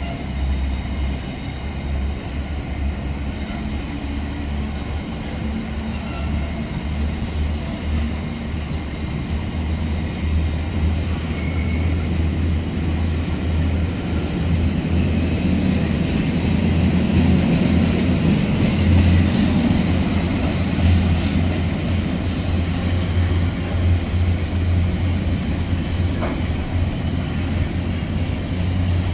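Container freight train's wagons rolling past, a steady low rumble of wheels on the rails that swells louder a little past halfway, then eases.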